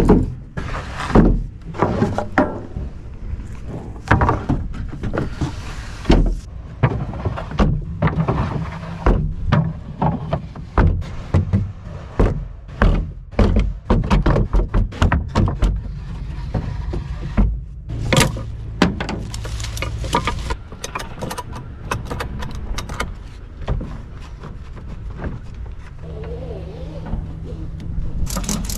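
Wooden lumber boards being slid and dropped into a pickup truck's lined bed: a long run of irregular thunks, knocks and scraping clatter of wood on wood and on the bedliner.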